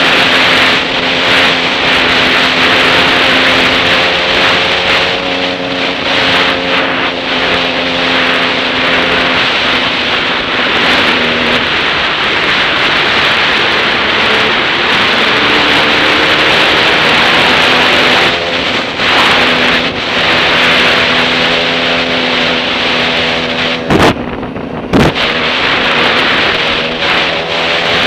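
Off-road motorcycle engine running under way, its pitch shifting up and down with throttle and gear changes, under heavy wind noise on a helmet-mounted microphone. About 24 seconds in come two sharp knocks about a second apart, and the wind noise drops briefly between them.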